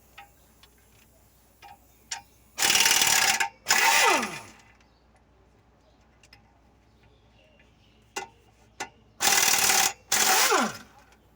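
Impact wrench running in four short bursts, two pairs about six seconds apart, each hammering for about a second and ending in a falling whine as the motor spins down, with light clicks of tools and parts between: bolts being undone while dismantling a truck clutch.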